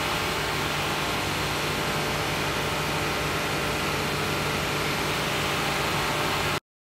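Car engine idling steadily under a broad hiss; the sound cuts off suddenly near the end.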